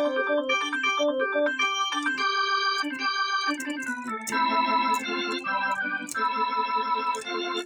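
Electronic keyboard being played: a quick run of single notes stepping up and down, then held chords from about four seconds in, cutting off suddenly near the end.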